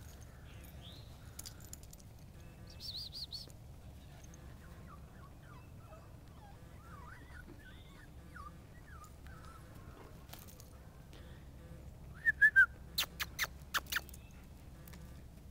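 Wild birds chirping and calling: scattered short whistled notes and trills, with a louder run of three quick calls about twelve seconds in. Several sharp clicks follow that run.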